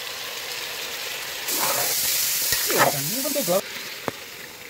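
Food frying and sizzling in a pan. The sizzle gets louder about a second and a half in and falls away shortly before the end.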